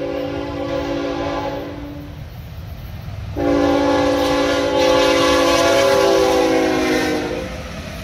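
CSX diesel freight locomotive sounding its multi-chime air horn: one blast ending about two seconds in, then a louder, longer blast that drops in pitch as the locomotive passes, over the low rumble of the train rolling by.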